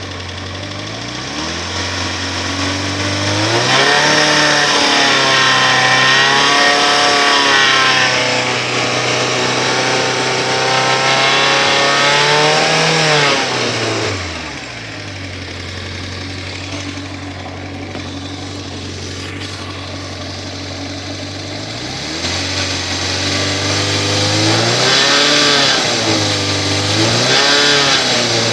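Yamaha XJ600S Diversion's air-cooled inline-four engine running, revved up and held for about ten seconds, dropping back to idle, then revved up and down several times near the end. It has a ticking rattle that was traced to a completely loose exhaust clamp between the header and the muffler.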